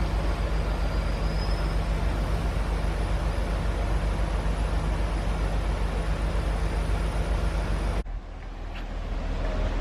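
Large diesel engine running steadily with a low drone. About eight seconds in the sound drops suddenly, leaving a quieter low hum that slowly swells again.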